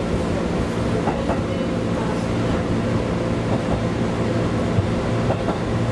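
JR 211 series 3000 electric train running between stations, heard from inside the leading car: a steady running hum with several low tones over a wash of rolling noise, and occasional faint clicks.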